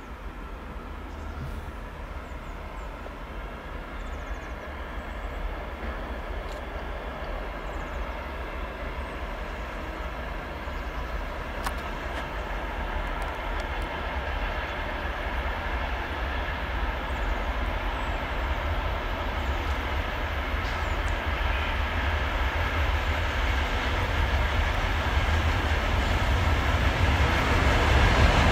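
Siemens ER20CF diesel-electric locomotive hauling a freight train, approaching and growing steadily louder: a deep engine rumble with a faint hum from the engine over it.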